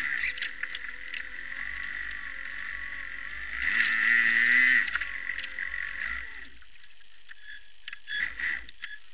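Traxxas Spartan RC boat's brushless motor whining at low throttle, heard through the onboard camera. Its pitch wavers, it swells loudest about four seconds in, cuts out about six and a half seconds in, and gives a short burst near the end, over a steady high tone.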